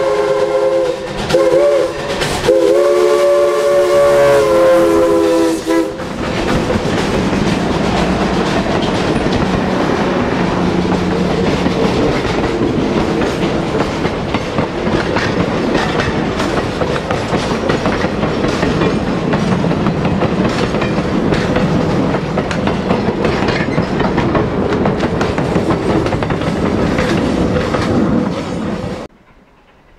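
A steam locomotive's whistle blows a long blast, broken briefly about a second in, and stops about six seconds in. The train's passenger cars then roll past, their wheels rumbling and clicking over the rail joints. The sound cuts off suddenly near the end.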